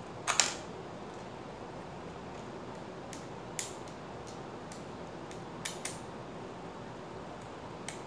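Screwdriver and small screws clicking against the SSD's aluminium mounting bracket while the drive is screwed in: a loud clatter just after the start, a single click about halfway, a pair a little later and one more near the end, over a steady background hiss.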